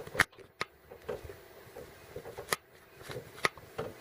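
Sharp metallic clicks at uneven intervals, about one a second, from the valvetrain of a running ZMZ-409 engine with its valve cover off. It is the ticking of a worn hydraulic valve lifter that no longer takes up the play at its rocker, which shows once the engine is hot.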